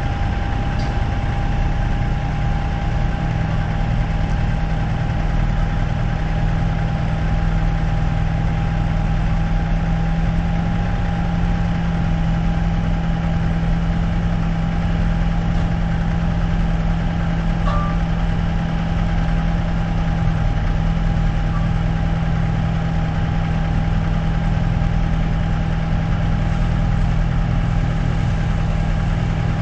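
A large engine idling steadily, a low even hum with a thin steady higher tone above it.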